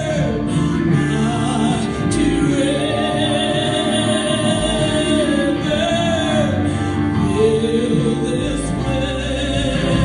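Live gospel song: a woman singing long, sliding notes into a microphone, over strummed electric guitar through an amplifier.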